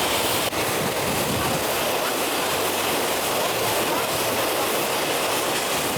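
Steady rushing of running water, an even hiss with no rhythm or pitch.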